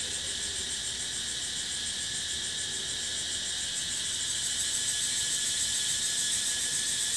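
Cicadas singing in chorus: a steady, shrill, fast-pulsing drone that grows a little louder about four seconds in.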